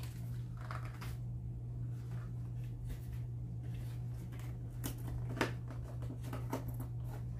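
Cardboard packaging and small smartwatch parts handled during an unboxing: scattered light rustles and clicks over a steady low hum.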